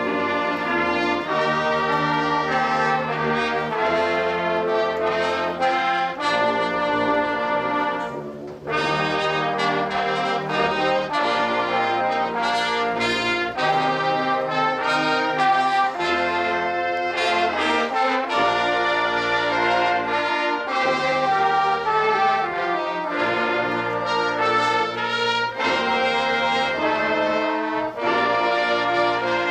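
High school marching band playing, brass to the fore, in held chords. There is a brief break in the music about eight seconds in.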